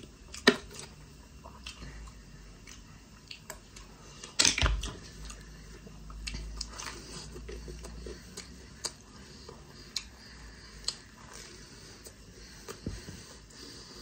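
Close-up eating sounds: scattered small clicks and crunches of chewing a fried chicken sha phaley pastry, with a louder knock about four and a half seconds in.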